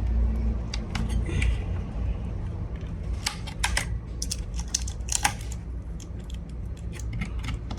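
Irregular light clicks and small metallic taps as the faulty buffer board of a plasma TV is unscrewed and taken out, over a steady low hum.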